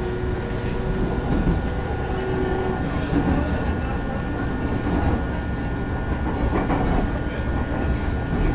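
Electric commuter train on the Narita Line running at speed, heard from inside the carriage: a steady rumble of wheels on rails with occasional faint clicks, and a thin steady high whine over it.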